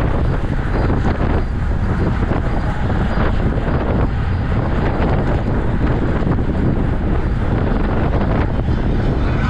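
Steady wind rushing over the microphone of a camera on a bicycle ridden at race speed.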